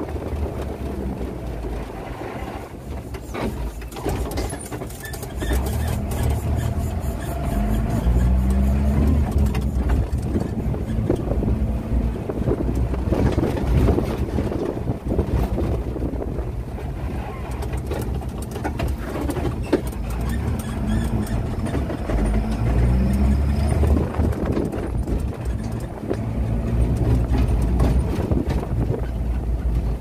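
Engine and road rumble heard from inside a moving vehicle's cab, with wind noise; twice the engine pitch climbs and drops as the vehicle accelerates and changes gear.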